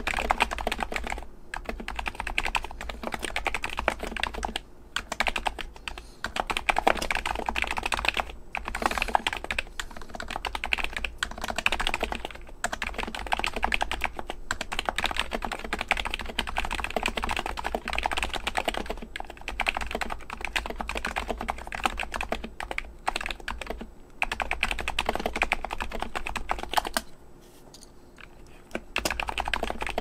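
Steady fast typing on a modded Happy Hacking Keyboard with Topre electrocapacitive switches: 55 g rubber domes, Novatouch sliders, Hypersphere silencing rings and PBT keycaps, a dense run of keystrokes. The typing stops briefly near the end, then resumes.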